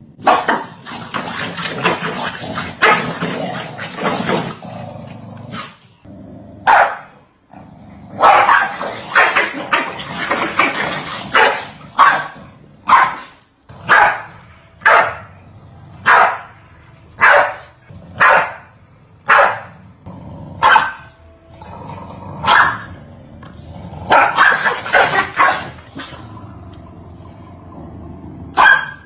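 Dogs barking: loud flurries of rapid barks, with a stretch of single sharp barks about once a second in the middle.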